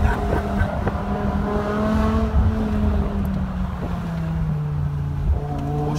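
BMW E60 M5's V10 through a straight-pipe exhaust, heard from inside the cabin: a deep, steady drone at light throttle. The engine note climbs a little for the first couple of seconds, then its pitch eases down as the revs fall.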